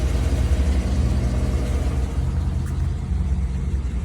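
Chevrolet Avalanche's 5.3-litre V8 idling steadily, a low even rumble.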